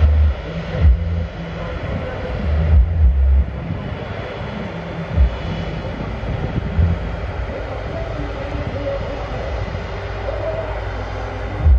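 Jet airliner engines running at taxi power, a steady low rumble, with a few loud, sudden low bursts in the first few seconds.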